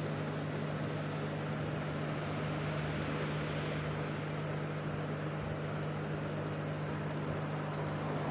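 Hot air rework gun blowing steadily: an even rush of air with a low hum underneath. It is heating a motherboard's Intel chip to reflow its solder.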